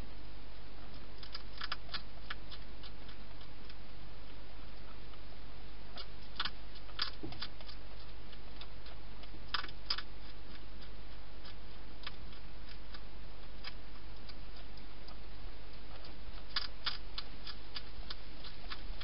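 A hedgehog eating from a dish inside a plastic feeding box: sharp, irregular clicks and crunches in short clusters, over a steady low electrical hum.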